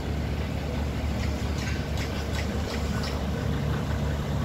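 A heavy engine running steadily with a low hum, with several light clicks or knocks through the middle.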